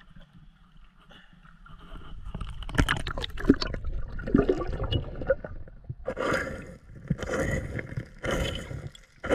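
Hands digging in the sand and gravel of a shallow riverbed to free a buried bottle, heard with the camera underwater: water sloshing and stones scraping in irregular bursts that pick up about two seconds in.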